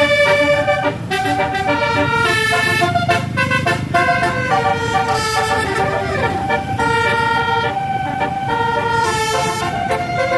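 Bus telolet horns of the Basuri type play a quick melody of stepped horn notes over the low rumble of bus engines. About six seconds in there is a short siren-like sweep in pitch.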